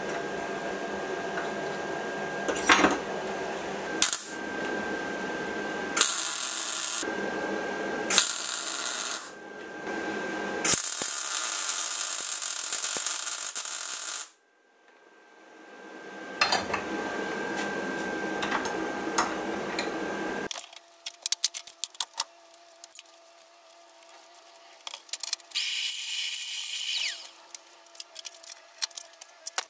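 Electric arc welding on steel rod: several runs of steady crackling hiss a few seconds each, with short breaks between them. In the last third it gives way to quieter scattered metallic clicks and taps.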